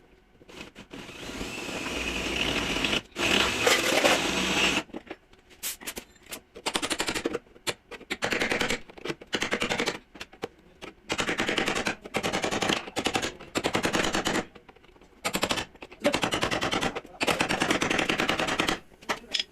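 Air-powered shop tool running in a long stretch and then about a dozen short bursts of very fast hammering strokes.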